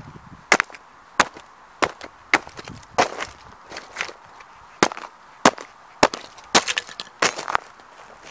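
Broken pieces of a metal model Ferrari toy car cracking and snapping under a stomping sneaker sole, with grit crunching on dirt. About a dozen sharp cracks come at an uneven pace, roughly one every half second to second.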